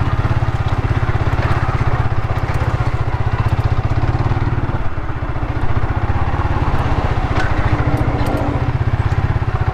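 Motorcycle engine running at a low, steady speed, its firing pulses even and close together, easing off briefly about five seconds in.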